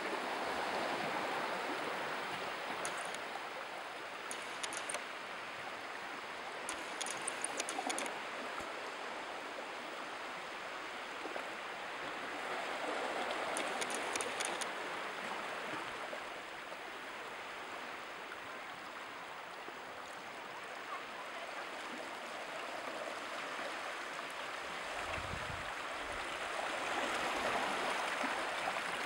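Sea washing over a rocky, stony shore: a steady rush of water that swells and eases, with louder surges near the start, about halfway and near the end. A few short runs of faint high ticks come in the first half.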